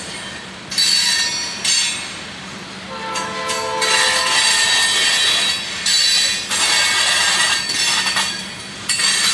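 Freight train of covered hopper cars rolling past, its wheels squealing in repeated high-pitched bursts of about a second each, with a lower-pitched squeal about three seconds in.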